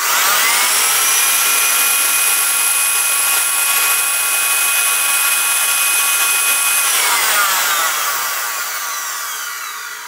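Vacuum-cleaner motor on ceramic ball bearings, fed about 100 V from a bench power supply: it spins up within a fraction of a second to a steady high whine with a rush of fan air. After about seven seconds the power is cut and it coasts down, the whine falling in pitch and fading slowly, a run-down test of the armature on the new bearings.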